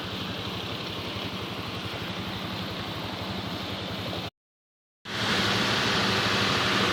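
Steady rumble and hiss of a train running, with a low steady hum underneath. The sound cuts out completely for under a second about four seconds in, then comes back louder and brighter.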